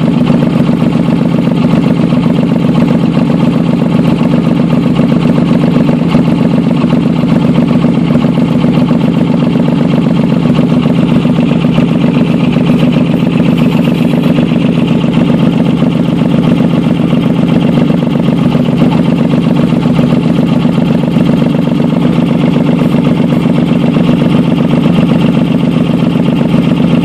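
Engine idling steadily with a fast, even pulsing exhaust note, the sound of an exhaust leak.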